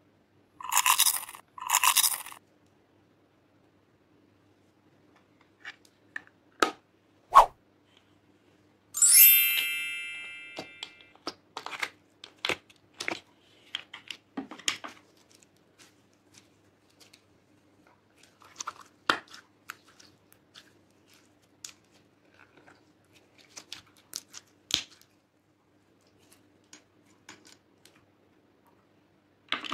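Slime and glitter being handled in a glass dish: scattered sticky crackles, clicks and pops, thickest from about eleven to fifteen seconds in. Two short rustling bursts come near the start, and a bright ringing ping about nine seconds in fades over about two seconds.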